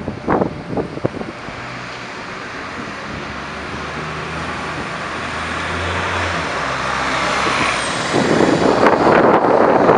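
Nova Bus LFS city bus's diesel engine pulling away and driving past, a steady drone that grows louder, turning into a loud rush of noise about eight seconds in as the bus passes close. A few sharp clicks come in the first second.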